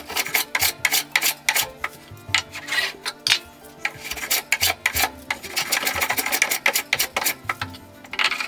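Quick, repeated scraping strokes of a hand-edged tool shaving a wooden board, several strokes a second, with a longer continuous stroke around the middle.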